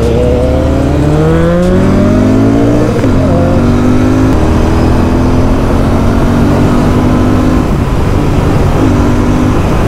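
Royal Enfield Continental GT 650's parallel-twin engine, fitted with an aftermarket Powerage exhaust, accelerating hard. The pitch climbs for about three seconds, drops at an upshift, then runs fairly steady in the higher gear, with wind noise underneath.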